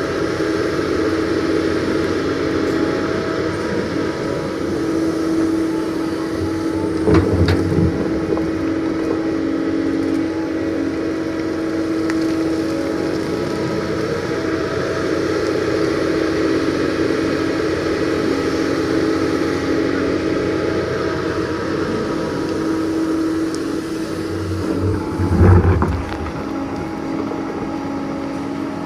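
Doosan DX225LCA excavator running steadily under work, its diesel engine and hydraulics giving a constant hum. Two heavy thuds break through, about seven seconds in and again near the end.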